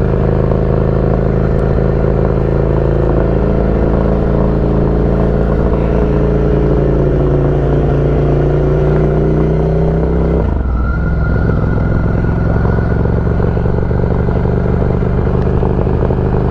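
Motorcycle engine running at a steady speed while riding, its note changing abruptly about ten seconds in and then holding steady again.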